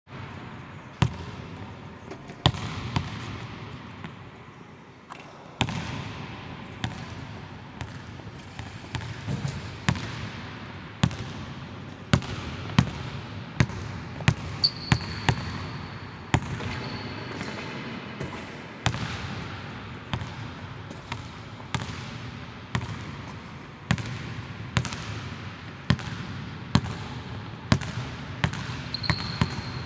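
Basketball dribbled on a hardwood court, with irregular bounces echoing around a large empty arena. Short sneaker squeaks on the floor come about halfway through and again near the end.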